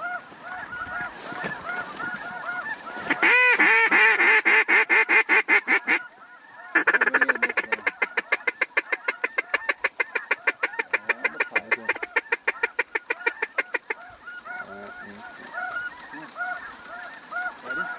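A hand-blown waterfowl call worked in two long runs of loud, rapid, evenly repeated notes, about seven a second, with a short break about six seconds in. Under it, a flock of waterfowl calls steadily in the distance.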